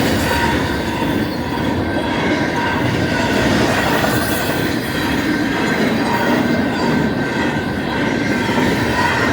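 BNSF intermodal freight train's cars rolling past at speed: a loud, steady rumble of steel wheels on rail, with a thin, steady high ringing from the wheels over it.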